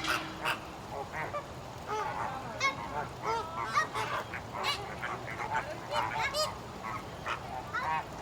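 A flock of flamingos calling: many short honks that overlap in an irregular stream.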